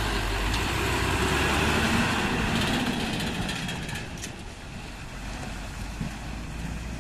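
Heavily loaded timber lorry passing close by, its engine rumbling low and its tyres on the road loud at first, then fading from about four seconds in as it drives away.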